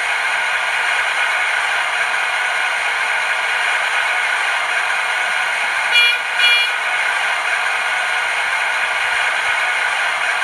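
Sound-decoder recording of an X2800 diesel railcar's engine idling, played through the model's small speaker as a steady rushing drone, with two short horn toots about six seconds in.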